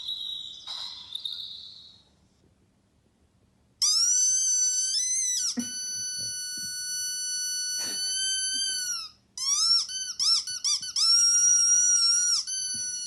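A brief scratchy noise fades out, and after a pause a loud, high-pitched squeal starts. It comes in long drawn-out stretches that bend up and down in pitch, with short warbling breaks in between.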